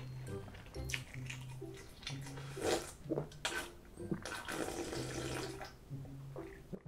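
Cold mul-naengmyeon broth being drunk straight from a large stainless-steel bowl: repeated slurps and swallows, the loudest about two and a half seconds in.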